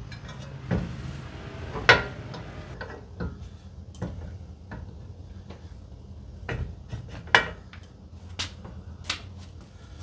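Scattered metallic clinks and knocks as a CV axle's splined shaft is worked through the front wheel hub, the sharpest about two seconds in and again about seven seconds in.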